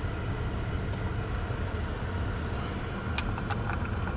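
2015 Chevy Malibu's HVAC blower fan running on high, a steady rush of air from the vents over a low hum, while the new climate control panel is tested on defrost. A couple of short clicks come about three seconds in.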